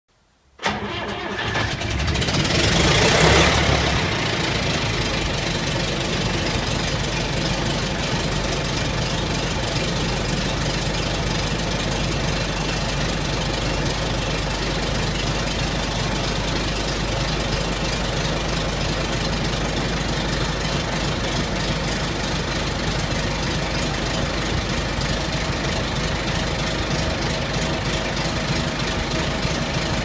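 John Deere 935 combine harvester's engine starting from cold. It fires about half a second in and runs loudest for the first few seconds, then settles into a steady run.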